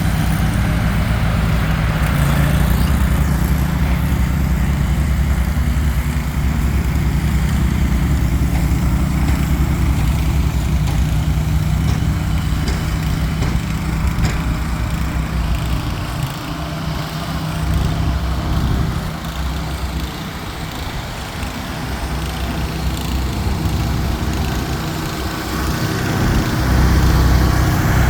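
Mahindra eMax 20 compact tractor's diesel engine running steadily, working a Bercomac snowblower. It fades somewhat through the second half and comes back louder near the end.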